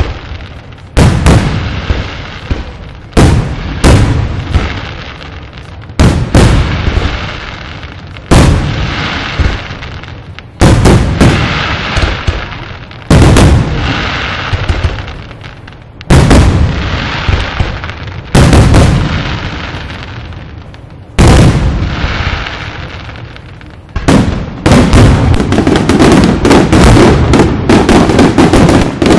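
Aerial firework shells bursting in loud booms about every two seconds, each boom trailing off over a second or two. Near the end the bursts come thick and fast in a continuous barrage, the finale of the display.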